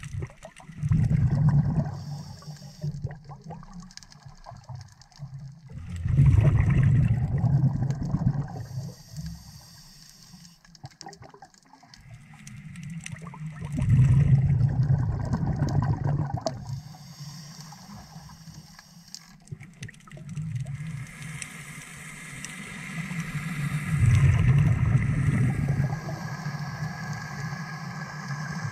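Scuba diver breathing through a regulator underwater: four long exhalations, each a loud surge of bubbling, spaced six to ten seconds apart, with a fainter hiss of inhaling between them.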